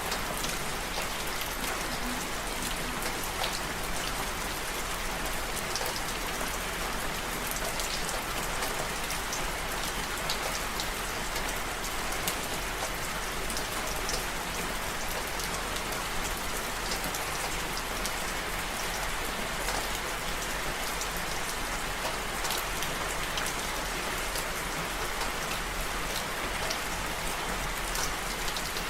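Steady rain, with many individual drops ticking sharply on a surface.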